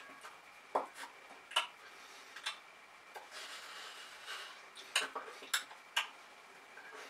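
Soft clicks and taps at irregular intervals, about eight of them, from a signer's hands striking and brushing together, with a short breathy hiss near the middle.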